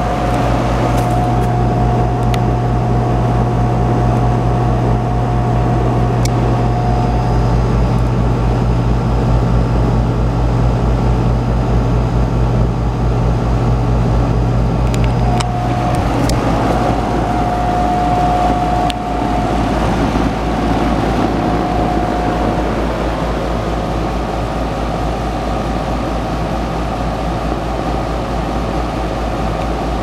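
Amana Distinctions heat pump unit running, with a steady hum from the compressor and fan. About halfway through the low part of the hum drops away while the rushing noise carries on.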